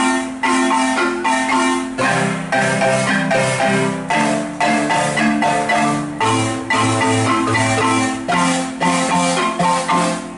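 An ensemble of wooden marimbas struck with mallets, playing a repeating rhythmic groove in several parts at once. Deeper bass-marimba notes join about two seconds in.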